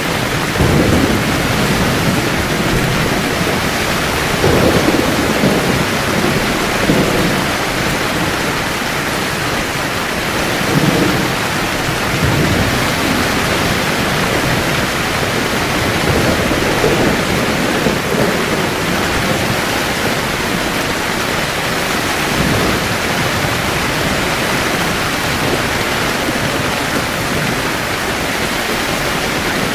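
Heavy rain falling steadily on a camping tent, with several low rolls of thunder rumbling through it during the first twenty seconds or so.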